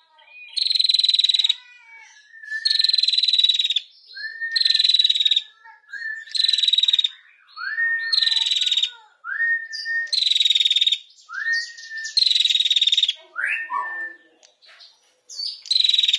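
Female prinia (prenjak) calling with a repeated rapid trill, the "ngetir" call. It gives a series of dry, buzzy trills, each about a second long, roughly every one and a half to two seconds, most of them led by a short rising note.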